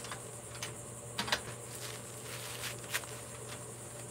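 Handling noise: a few scattered light knocks and rustles, the loudest about a second in, over a steady low hum.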